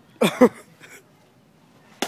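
A man's short, two-part yell about a quarter second in. Near the end, a sharp crack as a long dead branch is swung against a tree trunk.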